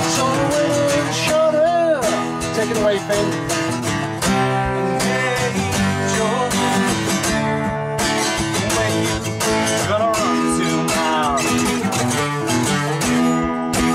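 Two acoustic guitars strummed together, with a man's voice singing along in places.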